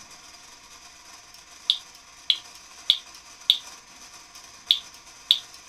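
Fire-alarm horn giving short chirps or pops, one for each pulse of a coded pull station through a relay: four chirps about half a second apart, a short pause, then two more in the same code pattern. The relay switches too slowly for the horn to power up, so it only chirps instead of sounding.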